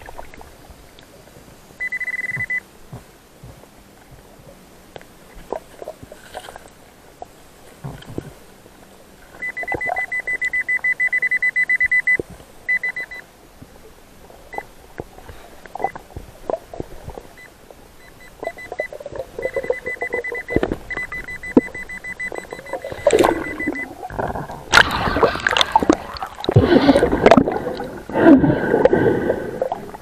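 Underwater metal detector sounding a high, steady beep, briefly at first and then in longer pulsing runs as it passes over metal buried in the sand. In the last few seconds, loud bursts of churning, bubbling water noise take over.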